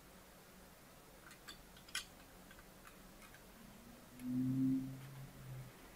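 A few faint clicks from handling a sound card and its packaging, then a short, steady, low hum lasting about a second and a half, starting about four seconds in.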